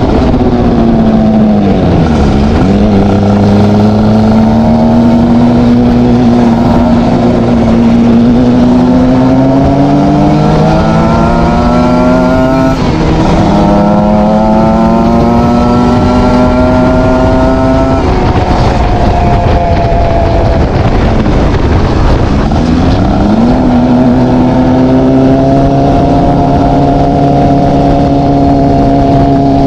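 Kawasaki sport motorcycle engine and exhaust running at high, fairly steady revs, the pitch creeping upward. Three times, near the start, about halfway and again later, the pitch dips sharply and climbs straight back.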